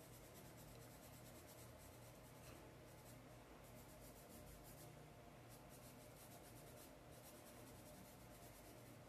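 Faint scratching of a paintbrush working fabric paint into coarse black sackcloth, coming and going in short runs of strokes.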